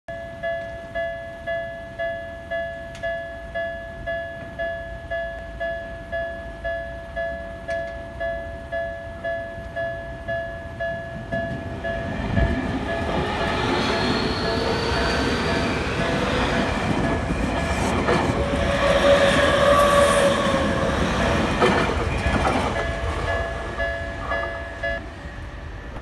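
Japanese level-crossing warning bell ringing about twice a second with a two-tone electronic clang. From about twelve seconds in, a Yokohama Minatomirai Railway Y500 series electric commuter train accelerating away from the station passes over the crossing, its wheels rumbling and rattling on the rails, with a rising whine. The bell is still ringing underneath and comes through again near the end.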